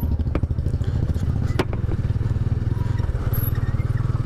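Motorcycle engine running steadily under way, a rapid, even low pulsing from its firing. Two short clicks stand out, about half a second and a second and a half in.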